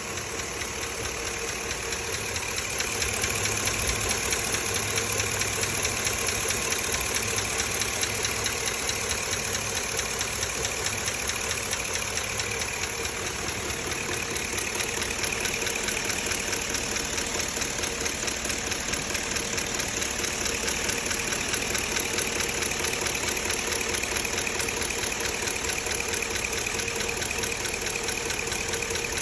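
2005 Chevrolet Avalanche's 5.3-litre V8 idling steadily with a fast, even ticking noise from the engine. It gets a little louder about three seconds in.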